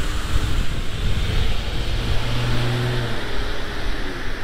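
Wind rumbling on the microphone of a moving bicycle, with road traffic behind it. A motor vehicle's engine hums for about a second, about two seconds in.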